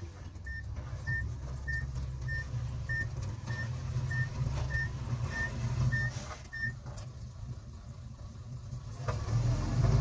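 A heavy earthmoving vehicle's diesel engine running low while its reversing alarm beeps steadily, about one and a half beeps a second, then stops about two-thirds of the way through.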